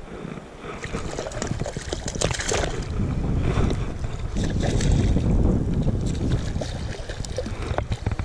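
Creek water splashing and sloshing around a hooked fish being drawn in at the surface, with a heavy low rumble of moving water and wind on the microphone that swells in the middle and eases near the end.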